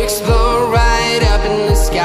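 Background pop song: a sung vocal over a steady kick-drum beat, about two beats a second.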